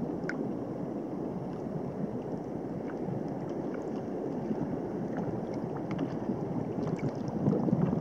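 Sea water lapping and sloshing, with wind on the microphone: a steady, even wash of sound that grows a little louder near the end.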